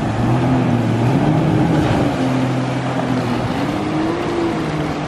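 Personal watercraft (jet ski) engines running under way, their pitch rising and falling as the riders throttle, over a rushing wash of water.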